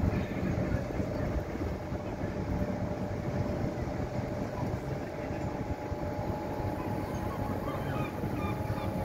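Small fishing boat's engine running steadily as the boat motors out across the harbour, with wind on the microphone. Seagulls start calling near the end.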